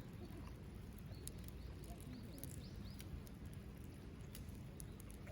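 Small wood fire burning faintly in a compact folding fire pit, with a few sparse crackling pops over a low steady rumble. A handful of short, high chirps come in about a second in.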